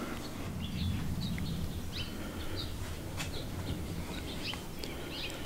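Small birds chirping in short, scattered calls over a low steady background rumble, with one faint click about three seconds in.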